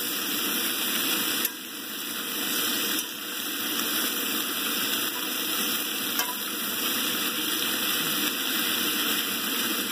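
Chopped onion, potato and pepper frying in a cast iron skillet, a steady sizzle, stirred now and then with a fork.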